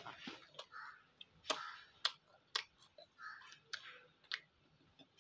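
A person chewing a mouthful of porotta and prawn fry close to the microphone, with sharp, irregular wet mouth clicks and lip smacks every half second or so.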